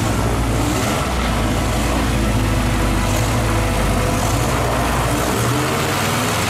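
An airboat's engine and propeller running loud and steady. The deepest part of the drone drops away about five seconds in.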